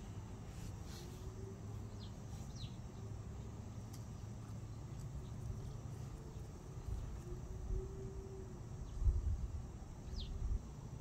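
Outdoor ambience: a steady low rumble with a few short, high, falling chirps, two about two seconds in and one near the end. A few low bumps come near the end.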